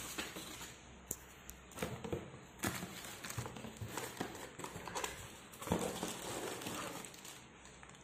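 Clear plastic packaging bags crinkling and cardboard rustling as the packed parts are handled in their shipping box, in irregular bursts with small knocks, loudest a little before six seconds in.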